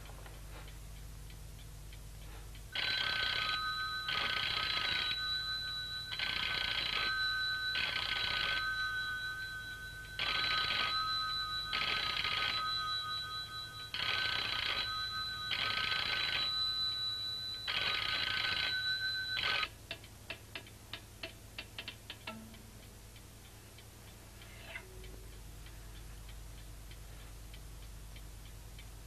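Old-style telephone bell ringing in the British double-ring pattern, five ring-rings. It stops suddenly, a few clicks follow, then faint ticking.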